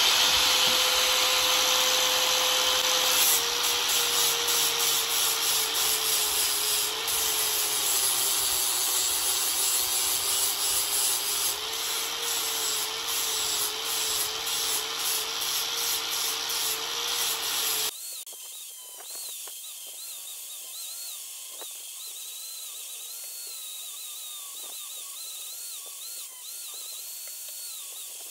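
Electric angle grinder with a flap disc grinding a steel knife blank: a steady motor whine over grinding noise, its pitch sagging slightly once the disc bears on the steel. About two-thirds of the way through, the sound cuts abruptly to a quieter, thinner grinding whine whose pitch wavers up and down.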